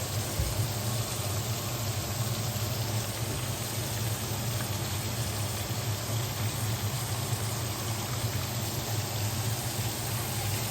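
Breaded chicken schnitzels frying in a pan of hot oil, a steady sizzle, over a steady low hum.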